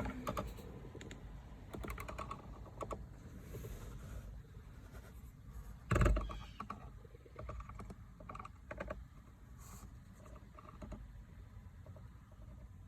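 Irregular small clicks and rattles of a screwdriver and screws being worked against the plastic blower motor housing under a car's dashboard, with one louder knock about six seconds in.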